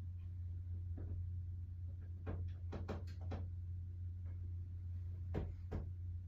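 Scattered soft knocks and clicks over a steady low hum: one about a second in, a quick cluster of four or five in the middle, and two more near the end.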